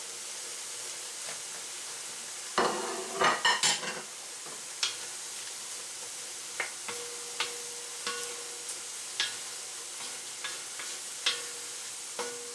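Chicken hearts and gizzards sizzling steadily in a pan. About two and a half seconds in there is a burst of clatter lasting over a second, then a utensil stirring, knocking against the pan about once a second.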